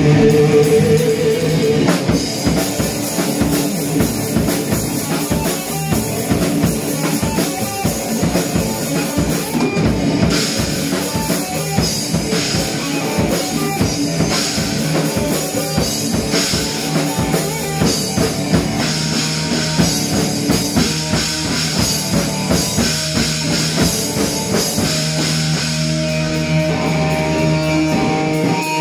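Live rock band playing electric guitars over a full drum kit. A held guitar chord opens, the drums come in about two seconds in, and near the end the drums drop away, leaving ringing chords.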